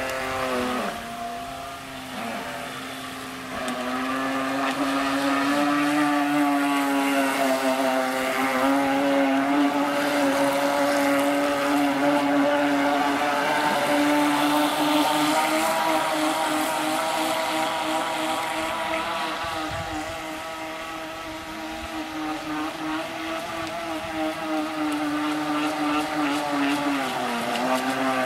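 Twin brushed 380 electric motors of a Heng Long 3837 RC speedboat whining at high speed. The pitch sags about a second in, climbs back a few seconds later, and sags again near the end as the throttle is eased and reapplied.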